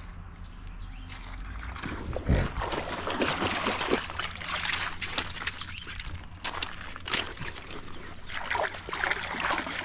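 Shallow creek water splashing and sloshing as a small dog wades at the edge, with many small splashes and a low thump about two seconds in.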